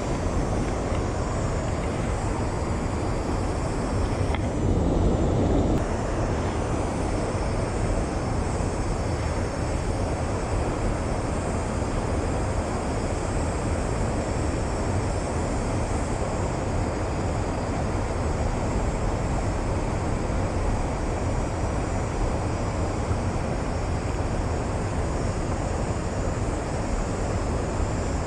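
Steady rushing noise of creek water flowing, with a brief louder swell about four to six seconds in.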